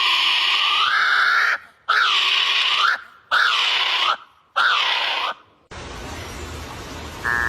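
A bird giving loud, harsh calls in a run, each about a second long and dipping then rising in pitch, the kind of call heard in forests at night. About six seconds in the calls stop and a steady hiss with a low hum takes over.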